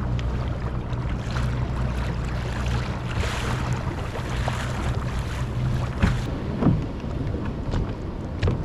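A boat's motor runs steadily under wind and water noise while the boat moves to the next hoop net. There are a few sharp knocks after about six seconds.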